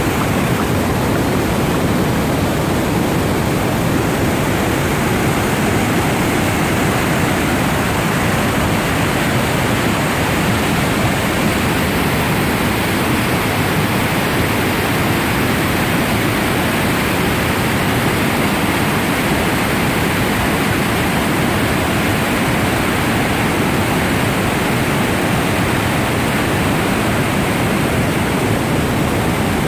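Rio Sacramento in flood, its water rushing and pouring at the waterfall: a loud, steady rush of water that does not change.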